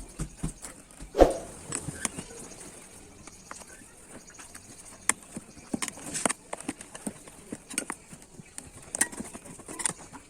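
Irregular clicks and knocks of hand work on a bicycle tyre and wheel during a puncture repair, with one louder knock about a second in.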